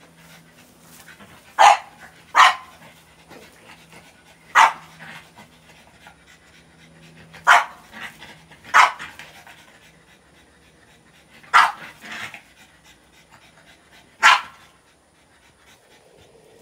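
French bulldog puppy giving about eight short, sharp barks, one to three seconds apart, as it works the goats.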